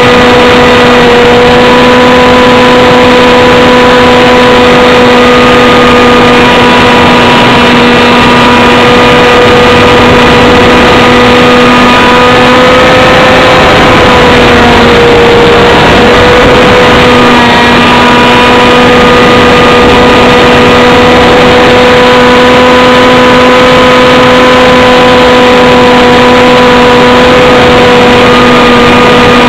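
A small aircraft's engine running steadily and loud at a near-constant pitch, with heavy airflow noise over the onboard camera. Its pitch dips slightly about halfway through.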